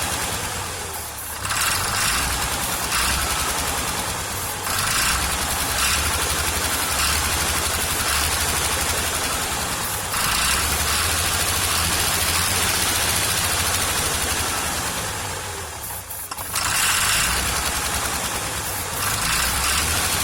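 Farmall 706 tractor's diesel engine running roughly, with a pulsing firing rhythm. It sags about a second in and again near the end, then picks back up each time. The owner takes this to mean the engine is running only on starter fluid, the rebuilt Bosch injection pump still not delivering fuel.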